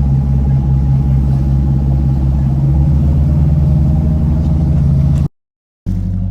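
Boat engine running steadily under way, a low pulsing drone. The sound drops out completely for about half a second near the end, then resumes.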